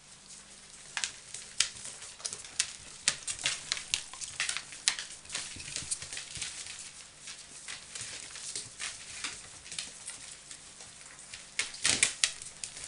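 Claws of a Samoyed and her puppies clicking irregularly on a hard floor as the puppies scramble around their mother, with a quick cluster of clicks near the end.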